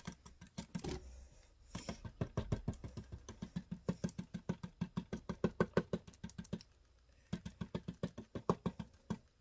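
Paint being dabbed through a plastic stencil onto a painted wooden panel: quick, even taps, about eight a second, in three runs with a short pause about a second in and another near seven seconds.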